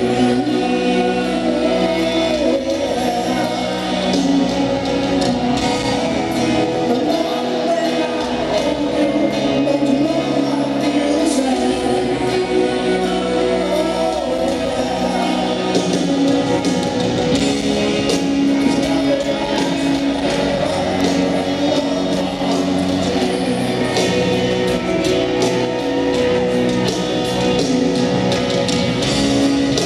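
Live rock band playing a piano-led power ballad through a stadium PA, with a man singing lead over piano, guitars, bass and drums, heard from the audience.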